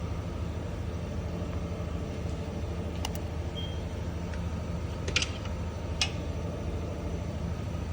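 Ram pickup's engine idling steadily, with three short, sharp clicks about 3, 5 and 6 seconds in.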